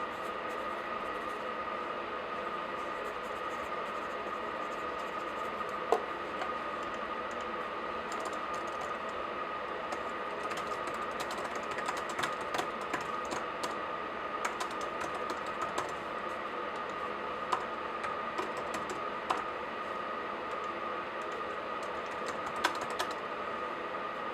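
Laptop keyboard typing in irregular spells of key clicks, busiest in the middle, with a few sharper single clicks standing out, over a steady faint hum.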